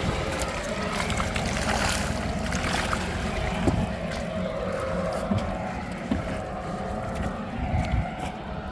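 A boat's engine running steadily, mixed with wind noise and a few scattered light knocks.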